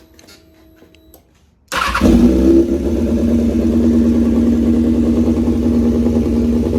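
2004 Kawasaki ZX-6R 636's inline-four engine firing up on its first start after a wiring harness and ECU swap. It catches abruptly about two seconds in, flares briefly, then settles into a steady idle. Before it starts, a faint steady hum stops about a second in.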